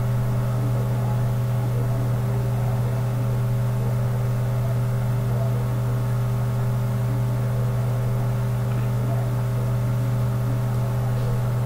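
Steady low machine hum with a stack of even overtones above it, unchanging in pitch and level.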